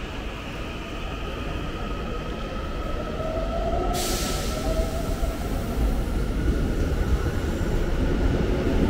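Seoul Subway Line 1 electric train approaching the platform, growing steadily louder, with a high hiss that comes in suddenly about four seconds in.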